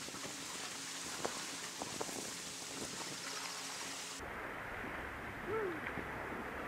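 Steady hiss of wind and sea wash on an outdoor camera microphone, turning abruptly duller and lower about four seconds in, with a few faint clicks and a short rising-and-falling squeak near the end.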